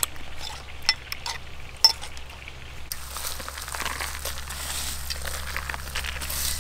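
A metal spoon clinking against a bowl four times in the first two seconds, then, from about halfway, a steady dry rustle as crispy fried garlic is scattered by hand onto grilled fish.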